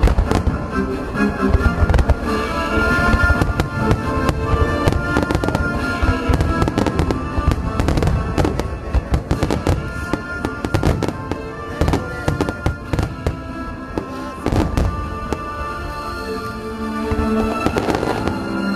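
Starmine fireworks bursting in quick, irregular succession, bangs and crackles overlapping, with music playing throughout.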